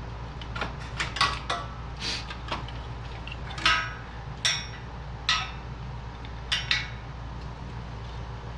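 Irregular sharp metallic clicks and clanks, the louder ones ringing briefly, as a bolted-in metal part, the hood latch assembly of a 1996–2000 Honda Civic, is wiggled and worked loose from the car's front.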